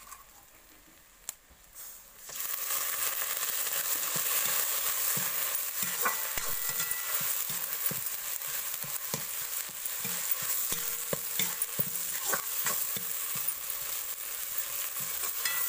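Ground masala frying in hot oil with onions in a kadhai. It starts with a sudden loud sizzle about two seconds in and keeps sizzling steadily, while a spoon scrapes and clicks against the pan as it is stirred.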